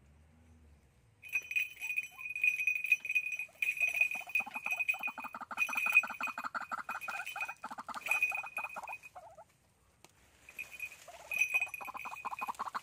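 White-breasted waterhens calling: a long run of rapid, repeated croaking notes that breaks off about nine seconds in and starts again a second later.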